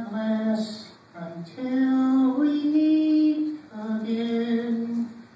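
A ventriloquist singing in his puppet's voice, holding a few long, slow notes with short breaths between them: the closing line of a goodbye song.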